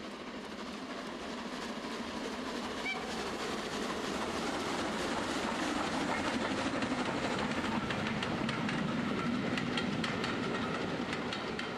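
Model railway steam locomotive and coaches running along the layout track: a steady running rumble with rapid clicks of wheels over rail joints, growing louder as the train passes and easing off near the end.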